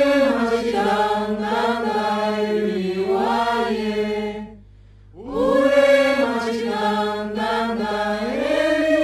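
Chanted vocal music: sung voices holding and gliding between notes in two long phrases, with a brief pause a little before the middle.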